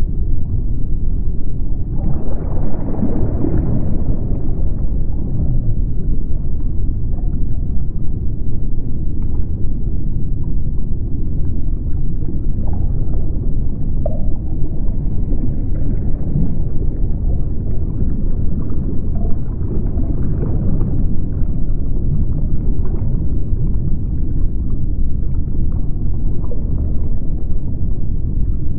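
Underwater ambience: a steady deep rumble and wash, with a few faint short tones here and there.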